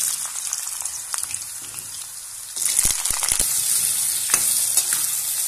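Diced potatoes sizzling as they fry in hot oil in an iron kadhai, with a few short scrapes of a metal spatula stirring them. The sizzle starts suddenly as the potatoes go in and grows louder about halfway through.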